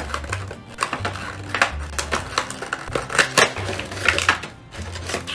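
Plastic packaging crinkling and clicking in a run of sharp snaps as a Funko Pop vinyl figure is pulled out of its box and plastic insert, with a low background music bass line underneath.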